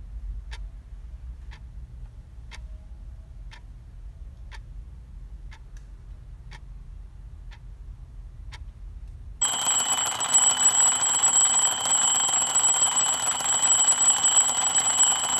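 A clock ticking about once a second over a low hum, then an alarm clock starts ringing about nine seconds in: a loud, steady, shrill ring.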